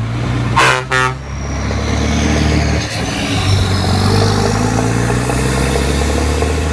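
Truck horn tooting twice about a second in, then a truck engine running steadily.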